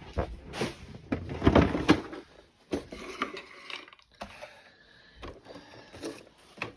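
Handling noise from a large plastic remote-control toy car being lifted and set down on a surface: rustling and knocks for about the first two seconds, then scattered light clicks and taps.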